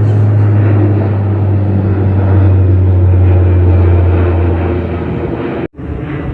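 De Havilland Canada Dash 8 Q400 turboprop airliner climbing out after takeoff: a loud, steady low propeller drone that fades about five seconds in and then cuts out abruptly for a moment near the end.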